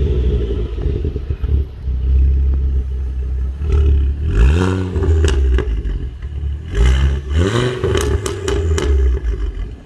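Exhaust of a stock 2007 Ford Focus ST's 2.5-litre turbocharged five-cylinder engine idling, blipped twice, the revs rising and falling each time, about four and seven seconds in. A few sharp clicks come during and after the second blip.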